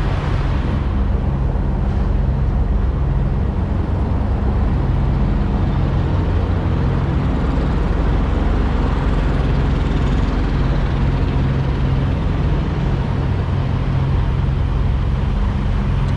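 Semi-truck diesel engine idling steadily: an even low drone.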